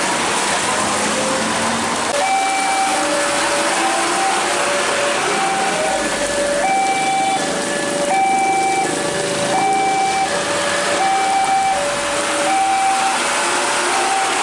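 Railway level-crossing warning signal sounding, starting about two seconds in: an electronic two-tone alarm alternating high and low, about one pair every second and a half, the warning that a train is approaching and the barrier is about to come down. Under it, rain and traffic hiss on the wet road, with a passing truck's engine rising slowly in pitch.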